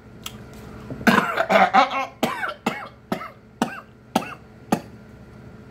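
A man's coughing fit: about nine sharp coughs in quick succession, starting about a second in and growing weaker. A piece of jalapeño has gone down the wrong pipe while he eats.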